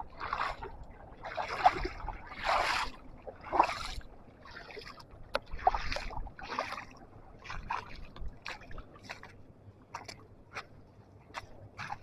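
People wading through river water, legs pushing and splashing through it in irregular surges, followed by a run of short sharp knocks.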